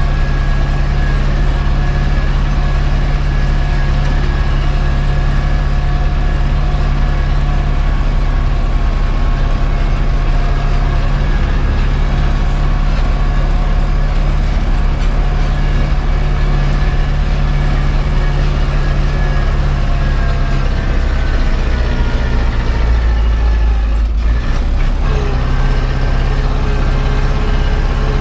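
Zetor 7011 tractor's four-cylinder diesel engine running under way, heard from inside the cab. The engine note falls about twenty seconds in, breaks briefly a few seconds later, then runs steady again.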